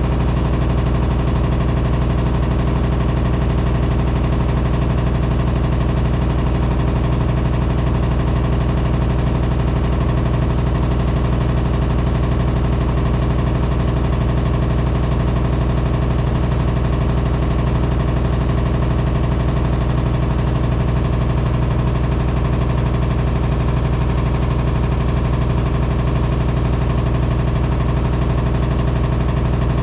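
Hitachi SF-150TCV 15 kg washing machine in its spin cycle, a steady, really loud drone with a strong low hum. The owner finds this spin noise abnormal for a new machine, having checked that it stands level.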